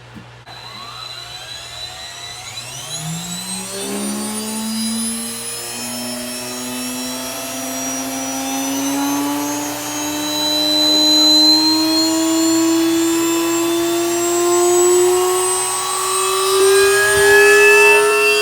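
Salvaged vacuum-cleaner motor spinning a blank CD, its whine climbing steadily in pitch and growing louder as the motor is turned up, driving the disc toward shattering speed.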